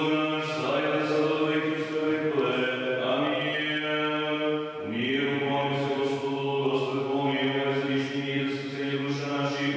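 Orthodox church chant: voices singing a slow melody over a steady held low drone, with a new phrase starting just under five seconds in.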